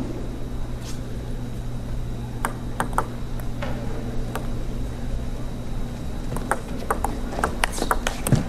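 Table tennis ball clicking: a few isolated clicks in the first half, then from about six seconds in a fast run of sharp clicks as the ball is struck by rackets and bounces on the table in a rally, over a steady low arena hum.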